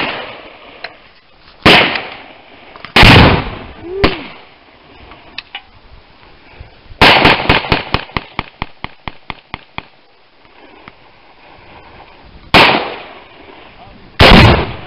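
Gunshots: three single shots a second or so apart, then a rapid string of about fifteen shots, another single shot, and near the end a heavier, longer blast, a Tannerite-filled pumpkin detonating.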